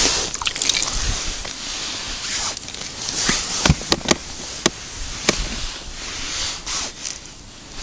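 Rustling and hissing of a jacket sleeve and fine fishing line being handled over an ice-fishing hole while a fish is played, with a few sharp clicks about three to five seconds in.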